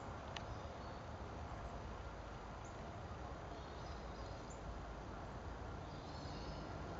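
Steady outdoor background noise with a low rumble, one faint click near the start and a few faint, short high chirps scattered through the middle.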